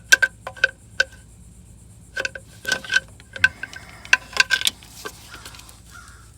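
Sharp metal-on-metal clicks and taps from a pry tool against the loose outer ring of a failed T1N Sprinter harmonic balancer, each tap ringing briefly at the same few pitches, coming in irregular clusters as the separated ring is worked forward off the hub.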